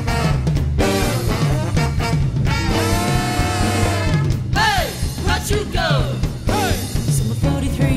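Swing band playing an up-tempo number live, with drum kit and singing. A long held note with vibrato comes near the middle, followed by short falling swoops.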